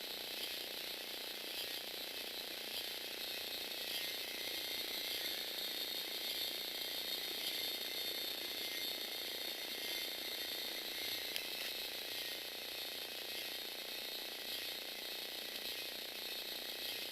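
Lego Technic robot's motor and plastic gear train running steadily, driving the legs of a walking four-legged robot.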